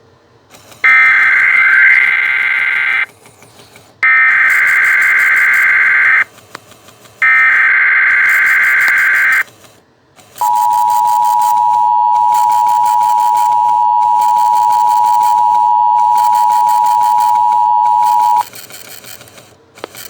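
TFT 911 EAS encoder/decoder sending an Emergency Alert System message: three identical warbling bursts of SAME header data, each about two seconds long with a short gap between, which encode the Civil Emergency Message. Then comes the steady two-tone EAS attention signal, held for about eight seconds before it cuts off.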